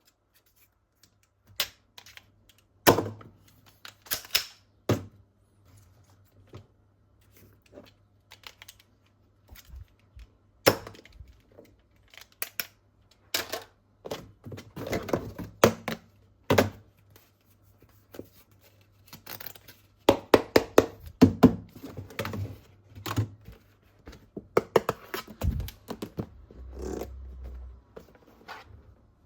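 Plastic toy parts and their packaging being handled: scattered knocks, clicks and thunks, in quick clusters about halfway through and again in the later part.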